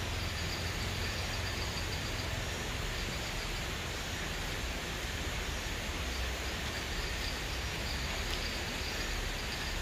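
Steady rush of a nearby river at night, with crickets chirping faintly and high above it.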